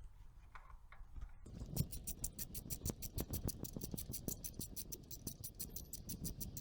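Ratchet wrench clicking in a fast, even run, about seven clicks a second, starting about a second and a half in, with a few duller knocks among them, as an ignition coil pack's hold-down bolt is undone.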